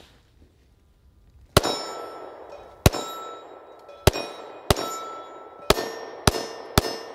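Seven shots from a 9mm Smith & Wesson M&P Shield pistol, each followed by the ring of the steel targets it hits. The first shots come a little over a second apart and the last few more quickly.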